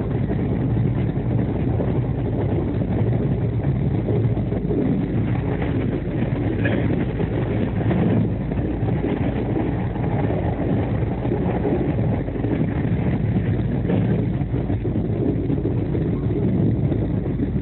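Steady low rumble of the 12259 Duronto Express running at speed, heard from inside the coach by the window: wheels on the rails and the carriage's running noise.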